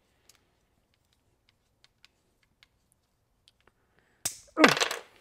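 Faint, scattered small clicks of a hex wrench turning a button head screw into a nylon locking nut on a plastic bracket. Near the end there is a sharp clack as the wrench slips, and right after it the loudest sound, a man's startled "oh".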